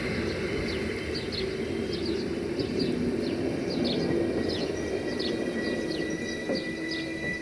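Passenger train's coaches rolling away on the rails, a low rumble with a faint steady whine, slowly fading. Birds chirp throughout in short, quick downward notes.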